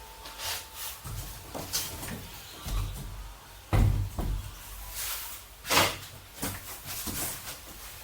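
Irregular knocks, thumps and a few short scrapes of wooden cabinet parts being handled and set in place.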